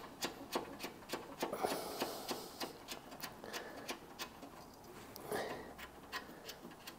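Faint, irregular small clicks and taps of hand tools and metal fittings as a new braided flexible brake hose is tightened into place, about two or three a second at first and thinning out toward the end.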